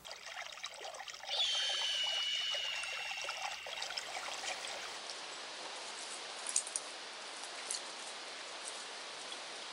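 Running water, like a stream trickling, as a steady hiss. A high, steady whistle-like tone sounds over it for about two seconds near the start and is the loudest part.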